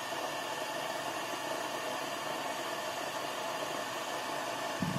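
Steady hiss of static from the loudspeaker of an East German Rundspruchempfänger 1355.AA tube radio, tuned but not yet picking up the signal-generator test signal. A few low knocks come in near the end.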